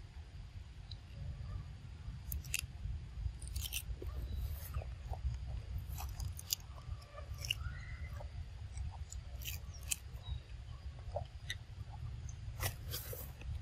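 Macaque handling and biting into crisp leafy greens: irregular crunching, tearing and rustling crackles, over a steady low rumble.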